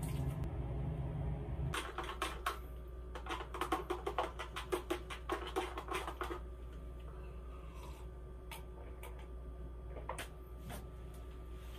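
A low steady hum for the first couple of seconds, then a spoon stirring and clinking rapidly against the inside of a mug for about four seconds, followed by a few scattered light clicks.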